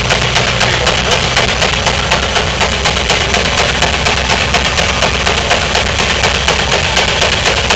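Huber steam traction engine running under belt load, powering a threshing machine, its exhaust beating in a rapid, even rhythm.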